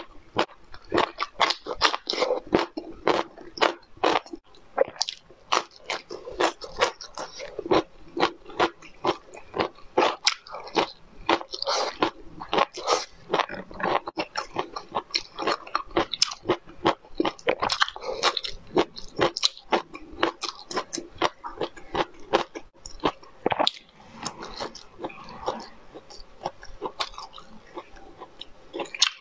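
Close-miked crunching and chewing of crisp food: rapid, sharp crunches, several a second.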